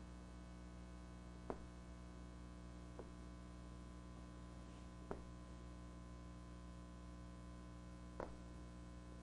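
Steady low mains hum, with four faint clicks spread through it as janggi pieces are set onto the demonstration board.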